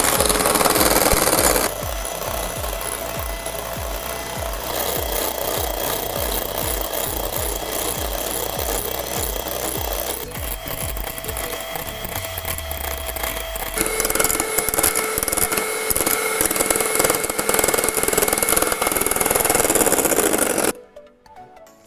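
Electric hand mixer running, its beaters whipping cream in a glass bowl until it thickens. The steady motor and beater noise changes tone a few times, then cuts off about a second before the end.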